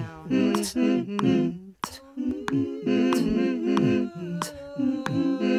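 Wordless a cappella voice humming short rhythmic notes, some dropping in pitch, over sharp clicks that keep a beat about twice a second.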